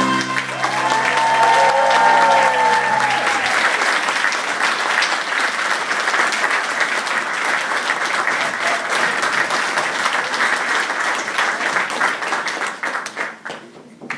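Audience applauding at the end of a children's song, with the song's last held chord fading out in the first few seconds; the clapping dies away near the end.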